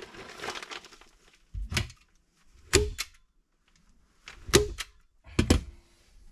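Several sharp knocks and clicks, four louder ones about a second apart and a couple with a short ringing tone, from a hand tool working fiberglass insulation out of a wall stud cavity.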